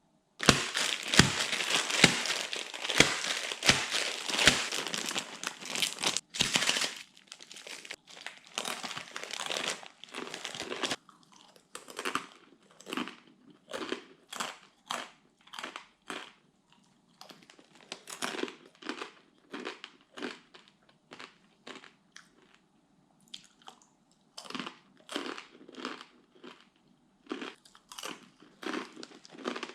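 Dry, uncooked Ottogi Snack Myeon instant ramen noodles being eaten raw. For about the first seven seconds there is dense crinkling and crunching; after that come separate crunchy bites and chews about once a second, with short pauses.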